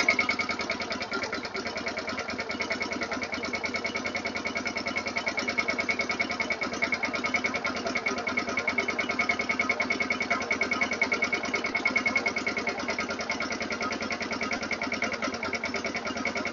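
Log splitter's small gas engine running steadily with a rapid, even pulse, driving the hydraulic pump that pushes the ram out of the opened cylinder.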